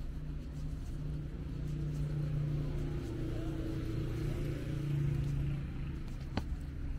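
Street traffic with a nearby motor vehicle engine running at a steady pitch, growing louder to a peak about five seconds in, then fading, with one sharp click near the end.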